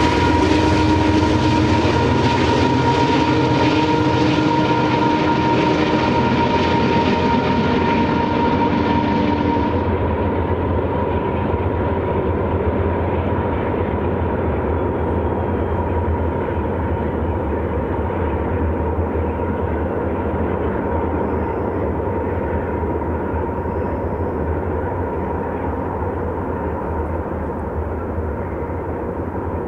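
Canadian Pacific GE diesel locomotives hauling a loaded coal train, a steady low engine drone with a steady whine over it. About a third of the way in the sound turns duller and more distant, then slowly fades.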